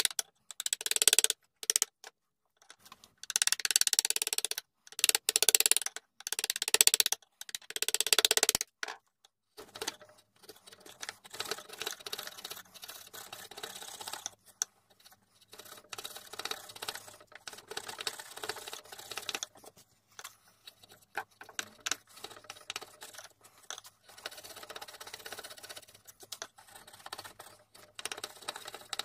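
Steel bench chisel, pushed by hand, paring across oak with a run of scraping, crunching cuts. The strokes come loud and choppy for about the first nine seconds, then turn to quieter, steadier scraping over a faint low hum.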